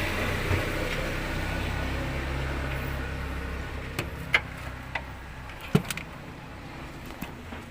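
Steady hum of a running vehicle engine that slowly fades, with a few sharp clicks and knocks from about four seconds in.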